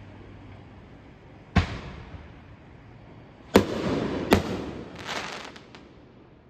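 Aerial fireworks bursting overhead: three sharp bangs, about a second and a half in, at three and a half seconds, and just under a second later. The second and third bangs are followed by a couple of seconds of crackling as the burst's stars pop.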